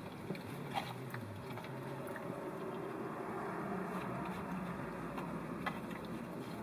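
Quiet eating sounds: chewing and a few light clicks of a plastic fork against a foil food tray, over a steady low hum inside a car.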